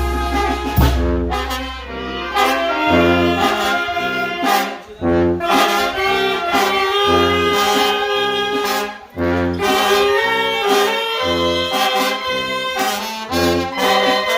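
Mexican banda, a brass-and-wind band, playing live. Trumpets, trombones and reeds carry the tune over a tuba bass line, with drum and cymbal hits. A held low note in the first few seconds gives way to a pulsing bass on the beat.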